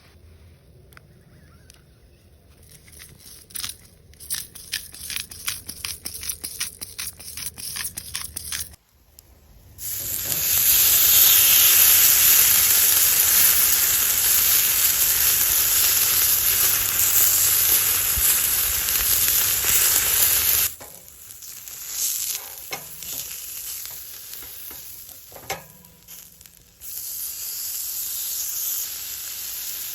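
Food frying in a hot pan: light crackling pops at first, then a loud, dense sizzle from about a third of the way in that cuts off suddenly, and a softer steady sizzle again near the end.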